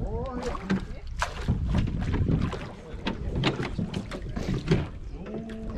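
Oars of a wooden rowing boat knocking and splashing, heard as a scattering of irregular knocks, over wind rumbling on the microphone.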